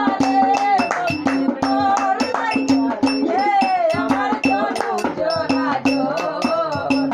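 A boy singing a folk song while drumming with both hands on a large upturned pot, the hand slaps keeping a steady rhythm, each with a short ringing note.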